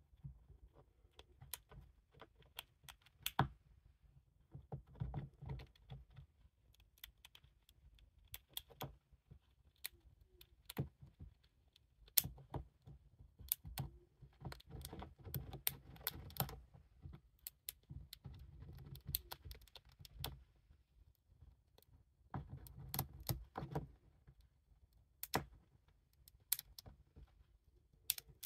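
A hamster gnawing an in-shell peanut, the teeth cracking and crunching the dry shell in quiet, irregular runs of small sharp clicks with short pauses between them.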